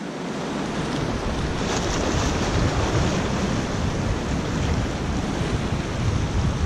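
Small waves washing and splashing against a rock jetty, with wind rumbling on the microphone from about a second in.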